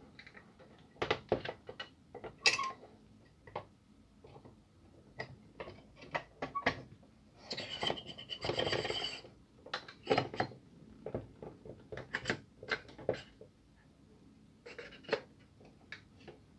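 Handling noises from a laser-printer drum unit being reassembled: irregular clicks and knocks of the plastic housing and metal drum shaft, with a longer scraping rub about halfway through as the shaft is worked through the new OPC drum.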